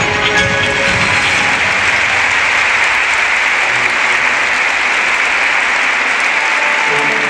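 Audience applauding, a dense steady clapping; the show music fades out in the first second and comes back in near the end.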